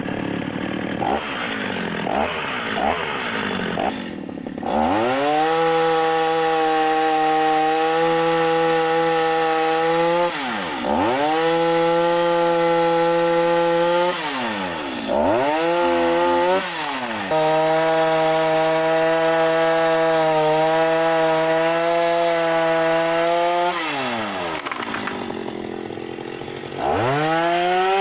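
Stihl MS-210 two-stroke chainsaw: a few short revs, then held at full throttle sawing through a tree trunk, its note dipping briefly several times as the throttle eases, and falling lower near the end before revving up again.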